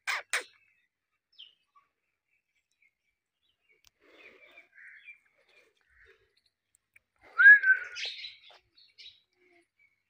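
Indian ringneck parakeet giving a short rising chirp about seven and a half seconds in, with some soft chattering before it. Two brief sharp sounds at the very start.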